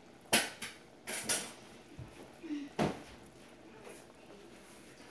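Several sharp clinks and knocks of metal pots and kitchen utensils, the loudest just after the start and another near three seconds in.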